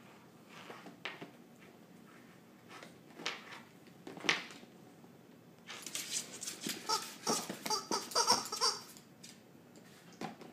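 A dog playing with a rubber chicken squeaky toy on a wooden floor: a few single squeaks and knocks, then about three seconds of busy squeaking, knocking and scrabbling in the middle.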